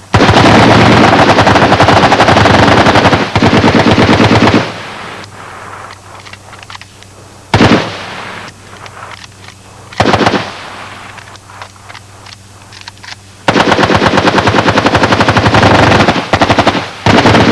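Military rifles firing on full automatic. A long burst of rapid fire over the first four seconds or so, then scattered quieter shots and two short loud bursts in the middle, and another long burst of about four seconds near the end.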